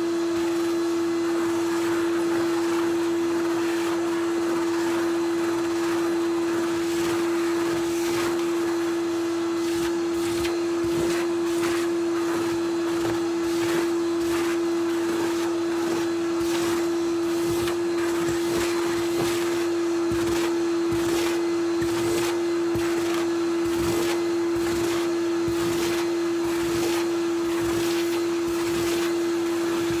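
Numatic Henry cylinder vacuum cleaner running with a steady motor hum and rush of air, its wand nozzle worked over a carpet rug. Frequent sharp clicks and crackles run through it, more of them after the first several seconds, as crushed crisp pieces are sucked up.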